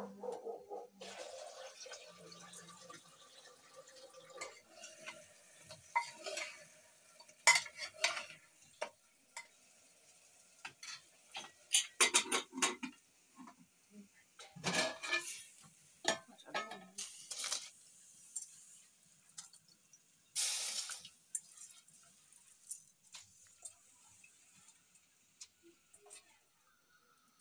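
Steel cookware clattering: a spoon knocking and scraping in a pressure cooker and steel bowls set down, in irregular clanks over a faint steady sizzle of food cooking in the pot.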